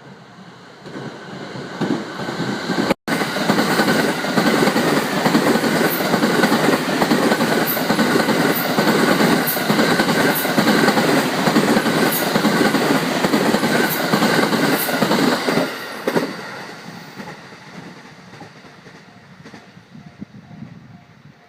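JR West 285 series Sunrise Express electric sleeper train passing over a level crossing at speed: a loud rush of wheels and motors with clicks from the wheels crossing rail joints, building over the first few seconds and dying away after about sixteen seconds. A level-crossing bell rings in a fast repeating ding as the train fades, and the sound cuts out for an instant about three seconds in.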